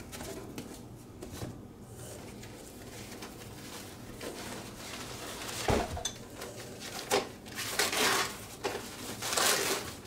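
Parts and packaging of a model airplane kit being handled: a single knock just past halfway, then several bursts of rustling packaging.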